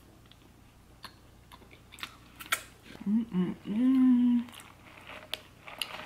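Mouth sounds of eating cotton candy: small wet clicks and lip smacks, then about three seconds in a short low vocal sound, two brief bits and then one held for nearly a second.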